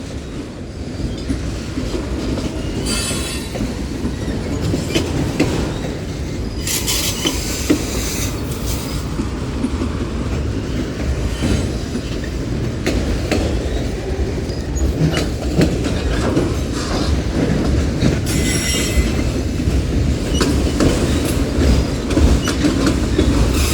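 Union Pacific mixed freight train's cars rolling past: a steady low rumble of wheels on rail with clicks at the rail joints. A few short bouts of high-pitched wheel squeal come through, about three seconds in, from about seven to nine seconds, and around eighteen seconds.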